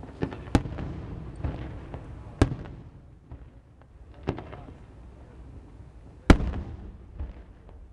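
Fireworks bursting in a display: four sharp bangs about two seconds apart, the loudest about six seconds in, with fainter pops and a low rumble between them.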